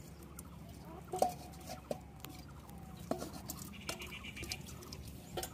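Scattered soft taps and knocks of live fish being handled in a wet aluminium bowl and tipped into a clay pot, with a few faint short chirps in the background.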